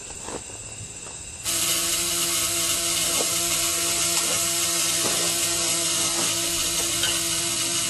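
Dynajet valved pulsejet engine starting: a few faint pops, then about a second and a half in it catches and runs with a steady, loud, harsh buzzing drone over a rushing jet hiss.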